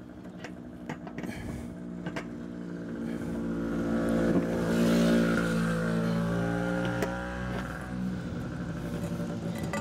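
A motor vehicle going by on the street, its engine note swelling to a peak about halfway through and then fading, with a few faint clicks of metal poles being handled.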